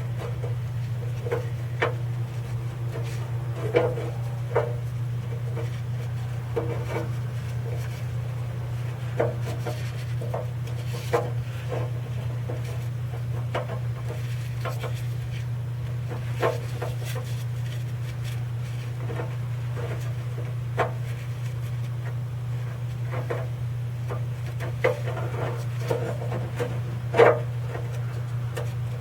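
Scattered light clicks, taps and rubbing as the dipstick tube adapter, its seal and tools are handled by hand, over a steady low hum.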